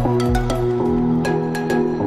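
Background music: a mellow electronic track with held chords and short plucked notes; its low thudding beat stops about half a second in.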